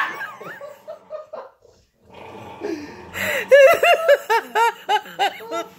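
A person laughing: a quick run of short, high-pitched laughs starting a little past halfway and stopping just before the end.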